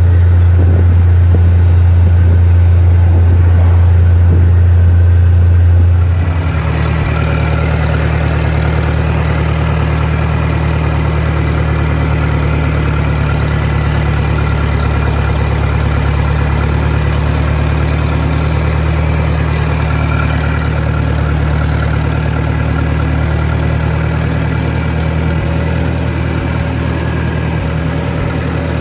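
Tractor engine running steadily with a deep drone. About six seconds in, the sound changes abruptly to a slightly quieter, steady engine note with more overtones as the tractor drives along.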